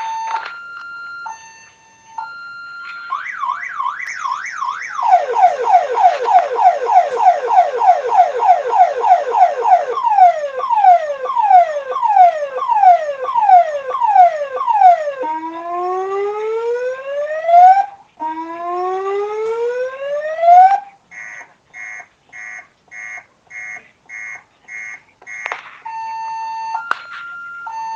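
Electronic ambulance siren stepping through its tone patterns. It starts with an alternating two-tone hi-lo and a quick yelp, then rapid falling sweeps about four a second and slower falling sweeps. Two long rising wails follow, then a pulsed beep about twice a second, and near the end it returns to the two-tone.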